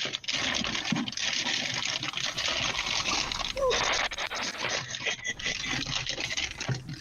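Loud, harsh airy rasping with liquid sounds as someone gets a drink: a steady hiss lasting nearly seven seconds, with a short squeak about halfway through.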